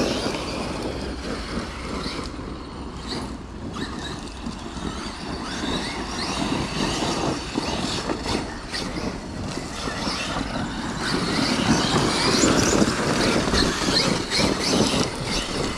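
Several electric RC monster trucks racing on a dirt track: motors whining as they speed up and back off, tyres churning dirt, and repeated knocks from bumps and landings, growing louder later on.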